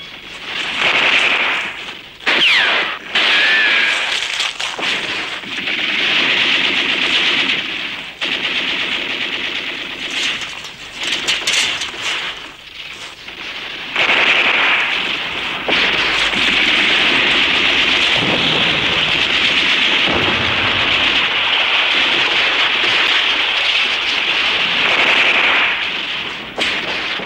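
Sustained machine-gun and rifle fire on an old war-film soundtrack, with several sharp single shots standing out, and a long unbroken stretch of firing in the second half.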